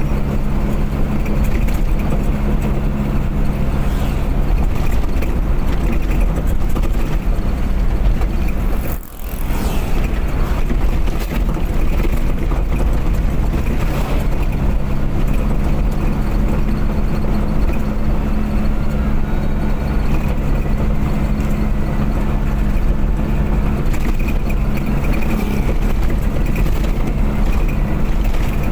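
Road vehicle driving at speed: a steady engine drone with continuous road and wind noise, which dips briefly about nine seconds in.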